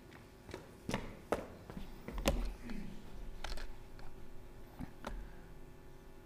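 Several separate sharp knocks and taps, the loudest with a dull thump a little over two seconds in: footsteps on a wooden stage and things being handled at a lectern.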